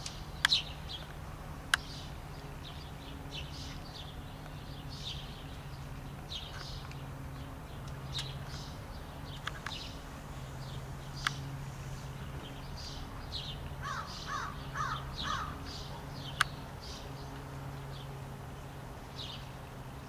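Small songbirds chirping on and off, with a crow giving a quick run of about five harsh caws about three-quarters of the way through. A few sharp clicks are the loudest sounds, over a steady low hum.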